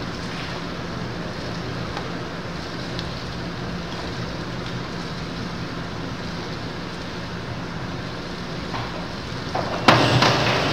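Steady hum and hiss of an indoor pool hall. Near the end comes a sudden loud splash as a springboard diver enters the water.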